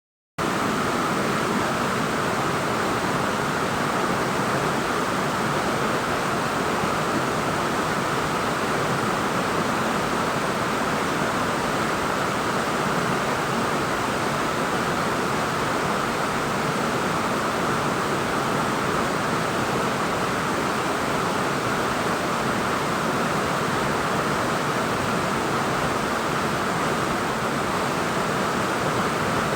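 Steady rush of water falling at a waterfall, an even unbroken noise that cuts in abruptly right at the start.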